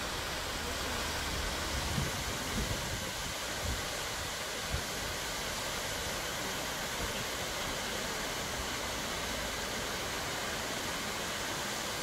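Water cascading down a stepped rock waterfall: a steady rushing hiss, with a few soft low thumps between about two and five seconds in.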